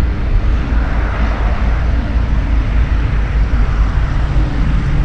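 Twin piston engines of a Cessna 414A Chancellor running at low power as the aircraft taxis, a steady, even drone with a strong low rumble.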